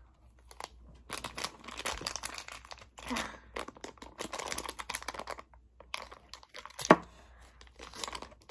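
Crinkly plastic package being squeezed and pulled at by hand, irregular crackling as it is worked at but not torn open. A single sharp click about seven seconds in is the loudest moment.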